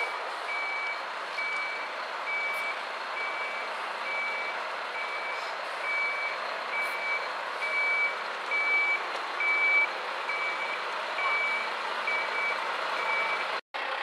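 Truck reversing alarm beeping steadily, a little more than one beep a second, over a steady vehicle engine and street noise; the beeping stops abruptly near the end.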